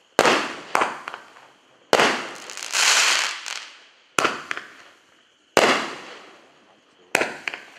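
A consumer fireworks cake (Lidu LUS49 'Coconut Symphony', 9 shots) firing: a string of sharp reports from shots launching and breaking overhead, each fading over about a second. About three seconds in there is a longer hissing stretch.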